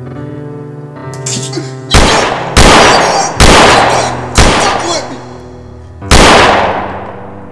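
Five pistol shots, each with a long echoing tail: four in quick succession less than a second apart, then a fifth after a pause of nearly two seconds. Soft keyboard music plays underneath.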